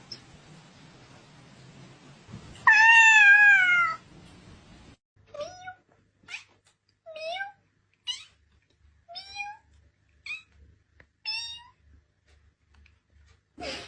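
A cat meowing: one loud, drawn-out meow that wavers and then falls in pitch, followed by a string of about eight short, quieter meows.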